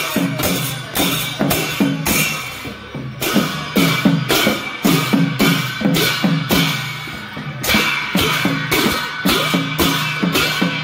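A Newar procession band playing: a barrel drum is beaten in a quick, steady rhythm, each low stroke dropping in pitch. Large and small hand cymbals clash over it, their metallic ring carrying on between strokes.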